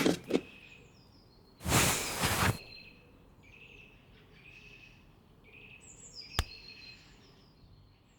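A burst of rushing noise about two seconds in, then faint birds chirping in short calls, with one sharp click about two-thirds of the way through.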